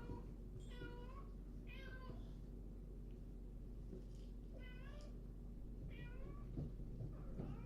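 Kittens mewing: four short, high-pitched mews, two about a second apart near the start and two more a few seconds later, over a steady low hum.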